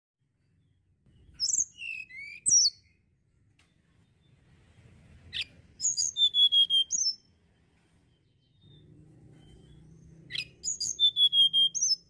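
Male hill blue flycatcher (tledekan gunung) singing three short, high phrases of quick falling notes. The second and third phrases each end in a held whistle that falls slightly in pitch.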